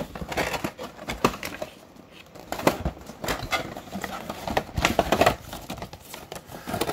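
Packaging crinkling, with irregular light knocks and clicks as board-game components are handled and packed back into their box.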